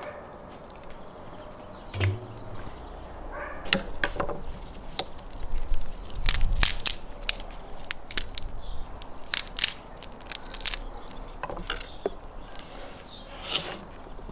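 Knife cutting raw goose pieces on a wooden cutting board: irregular sharp knocks and cracks of the blade and bone against the wood, with a heavier thump about six seconds in.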